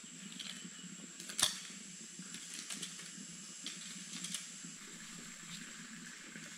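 A sharp click about a second and a half in, followed by several lighter clicks and ticks over a steady high-pitched hiss.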